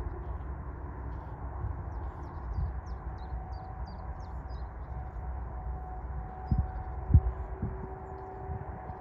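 Outdoor field ambience with a steady low rumble. A small bird gives a quick series of about seven short chirps from about two to five seconds in. A faint steady hum comes in during the second half, with two low thumps about six and a half and seven seconds in, the second the loudest.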